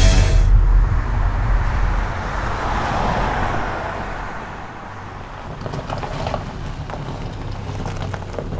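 Road traffic: a vehicle passes with a swell of tyre and engine noise about three seconds in, then fainter traffic with a few light knocks. A deep rumble dies away at the start.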